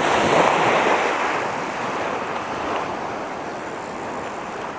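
Small waves washing onto a sandy beach, a steady surf wash that is strongest in the first second and then eases a little.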